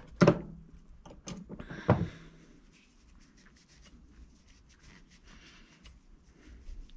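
Small metal brake caliper hardware knocking and clicking against the bench and rag, with two sharper knocks in the first two seconds. Then faint scraping and rubbing as the parts are worked clean by hand.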